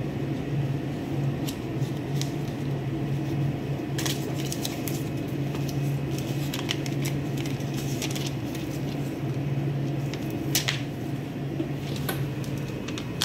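A paper shipping label and a cardboard parcel being handled: scattered paper rustles and small clicks, with a sharper crackle about ten and a half seconds in, over a steady low hum.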